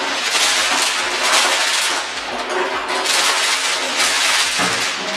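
Crumpled packing paper rustling and crinkling loudly as it is pulled out and handled, in several swells of about a second each.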